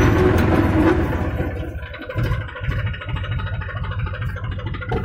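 Tractor diesel engine running. About a second or two in it eases off, then runs on more quietly with an even, steady beat.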